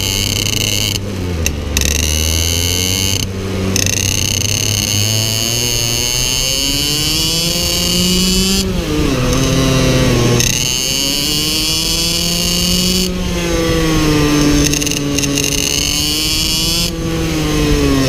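IAME X30 Super 175 cc two-stroke shifter kart engine at racing speed, heard from on board. Its note climbs under throttle and falls away several times on lifts and gear changes, most deeply about nine seconds in.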